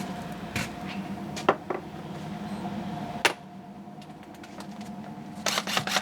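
Scattered clicks and taps of small metal outboard-motor parts being handled and fitted, with one sharp click a little past three seconds in and a quick cluster near the end, over a steady low hum.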